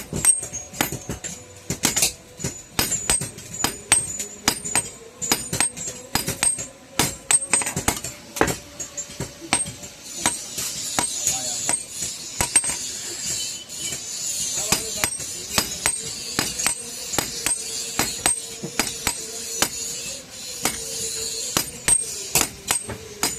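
Hand hammer striking hot iron on an anvil: quick, irregular metallic clinks, several a second, with a high hiss joining in through the middle stretch.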